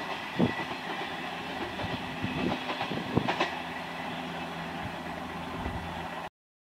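Passenger train running away down the line: steady wheel-and-rail rumble with a few sharp clacks over the rail joints. The sound cuts off abruptly near the end.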